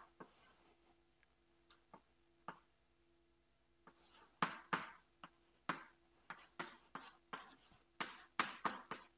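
Chalk writing on a blackboard: a single tap about two and a half seconds in, then a quick run of short chalk strokes and taps from about four seconds in.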